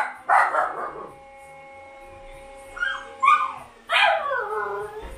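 Siberian husky puppies barking and yelping: two short sharp barks at the start, a pair of higher yelps about three seconds in, then a longer whining call near the end that slides down in pitch.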